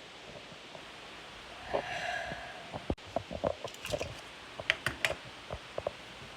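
Toy cap revolver clicking: a run of sharp mechanical clicks and snaps at an uneven pace, with a brief hum about two seconds in.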